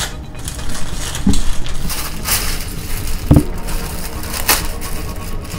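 Clear plastic bag crinkling and rustling in irregular bursts as hands open it and pull out what is inside, with a couple of soft thumps.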